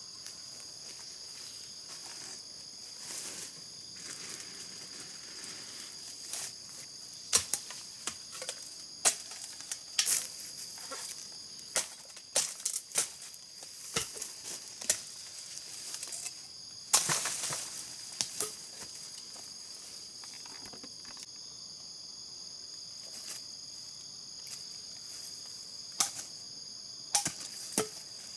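A steady, high-pitched insect chorus drones throughout, with many sharp snaps and cracks scattered through the middle and a few more near the end.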